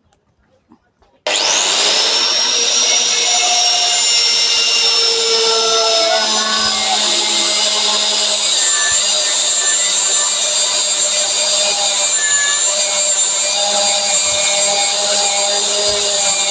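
Electric angle grinder switched on about a second in, its whine rising as the cut-off wheel spins up, then running steadily at a high pitch while cutting a steel reinforcing bar.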